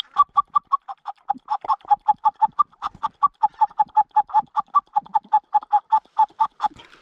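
Goose call blown in a fast, steady run of short clucks, about five a second, switching back and forth between a higher and a lower note, stopping just before the end.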